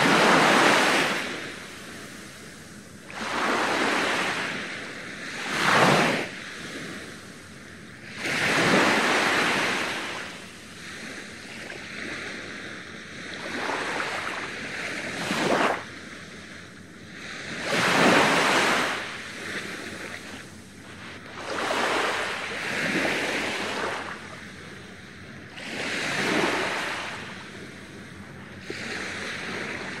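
Small sea waves breaking on a sandy shore and washing up the sand, in separate surges every few seconds, the first cresting right at the start.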